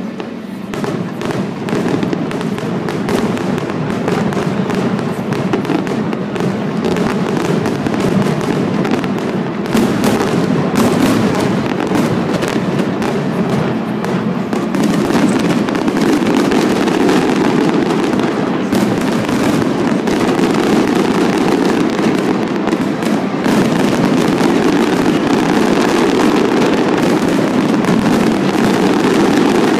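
A large fireworks display's closing barrage: a dense, continuous run of bursts and crackling with no break, getting a little louder about halfway through.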